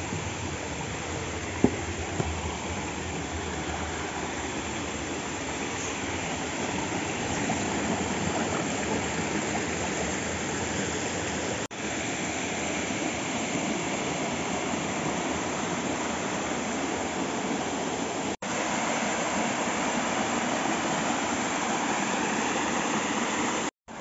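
Steady rush of a rocky stream or waterfall, broken by a few very short gaps.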